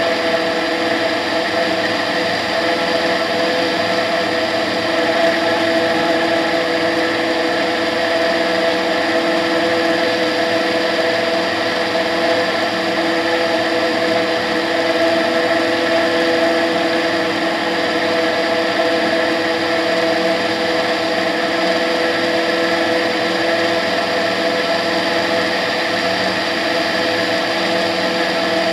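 Tetras ultralight aircraft's engine and propeller running steadily in flight: a constant drone with several steady tones over a hiss.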